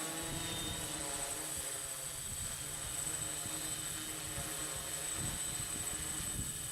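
Six-motor hexcopter (T-Motor motors, 14-inch props) humming in flight, under heavy wind buffeting on the microphone.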